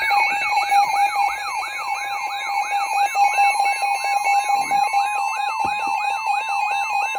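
Emergency alert attention tone: a loud, siren-like warble of repeated rising sweeps, about three a second, over steady high-pitched tones. It heralds a severe thunderstorm warning.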